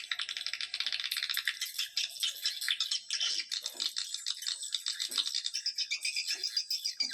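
Swiftlet lure-call recording: many swiftlets chattering in fast, high-pitched rattling trills with no break. This is the call sound played to attract swiftlets to a nest house.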